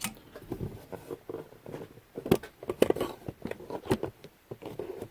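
Small clip nuts being handled and slid in a CNC router's track: irregular light clicks and knocks, the sharpest a little after halfway and near the end.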